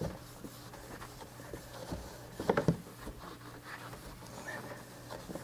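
Faint scratchy rubbing of a rag wiping down a kayak deck with alcohol to clean it before adhesive deck pads go on, over a low steady hum.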